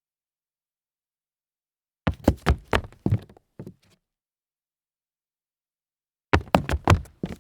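Dress shoes stumbling on concrete: a quick, uneven run of heel and sole knocks and scuffs about two seconds in, and another stumble near the end, with complete silence between.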